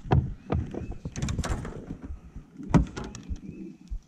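Handling noise of a spinning rod and reel being worked aboard a small fishing boat: a run of irregular knocks and clicks mixed with low thumps.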